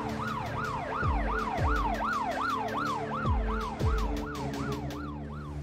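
Police siren in a fast yelp, whooping up and down about three times a second, with a few deep falling sweeps underneath and scattered sharp clicks.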